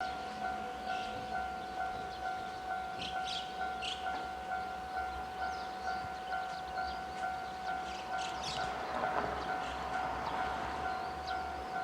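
Japanese railway level-crossing alarm ringing its electronic bell in a steady, even rhythm of about two to three dings a second, warning of an approaching train.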